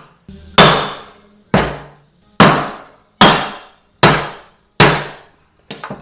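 Sledgehammer pounding the top of a Grasshopper mower deck spindle shaft to drive it down and out through its pulley. There are six hard metal-on-metal blows about 0.8 seconds apart, each ringing briefly, then a couple of lighter knocks near the end.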